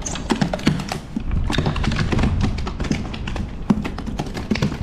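A rapid, irregular run of sharp taps and knocks on a plastic kayak as a just-landed fish and the fishing tackle are handled aboard.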